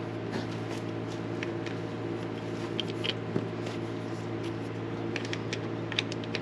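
A steady machine hum with scattered light clicks and taps of small metal parts being handled, more of them about halfway through and again near the end.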